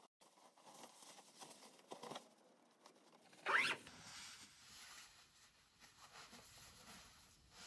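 Faint rustling of a quilted jacket being pulled on, then its zipper drawn up in one quick rising zip about three and a half seconds in.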